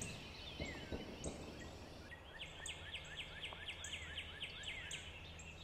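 Faint wild bird calls: a quick series of short downward-sliding chirps, about five a second, from about two seconds in until near the end, with scattered thin high notes over a quiet background.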